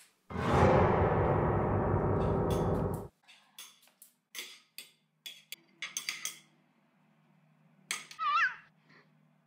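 A loud, harsh noise for about three seconds, then a run of light clicks and clinks, and a short cat meow falling in pitch near the end.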